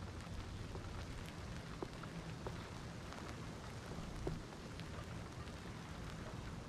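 Steady wind rumbling on the microphone ahead of a storm, with scattered light ticks through it.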